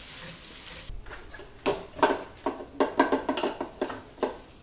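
Wooden spoon scraping and knocking against a skillet as ground beef is scraped out into a slow cooker crock. There is a run of about ten quick clattering knocks starting a little under halfway through.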